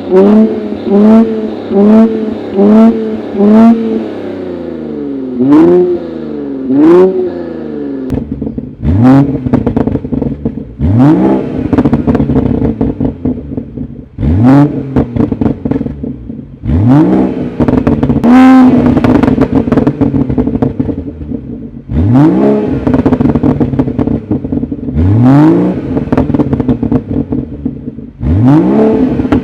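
Turbocharged six-cylinder car exhaust revving at standstill: quick throttle blips about once a second, then from about eight seconds in longer, higher revs every two or three seconds, with sharp pops and crackles as each rev falls.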